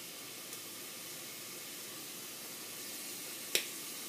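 Chopped onion and garlic frying in olive oil in a saucepan, a quiet steady sizzle. A faint click about half a second in and a single sharp click about three and a half seconds in.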